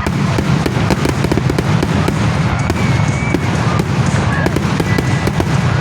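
Fireworks going off in a dense run of crackling pops, many a second, with a few short whistles among them.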